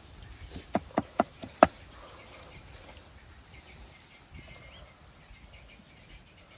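Cleaver chopping on a thick wooden chopping block: five quick, sharp chops about a second in, then only faint background.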